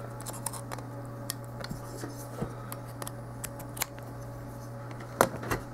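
Light clicks and taps of cables and connectors being handled while an RTL-SDR USB dongle and upconverter are plugged in, with two louder knocks about five seconds in. A steady low electrical hum runs underneath.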